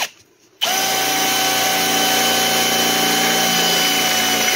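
Milwaukee Fuel brushless cordless drill drilling a bolt hole into a bench seat's frame: the motor stops, restarts about half a second later, then runs at a steady whine for about four seconds before stopping near the end.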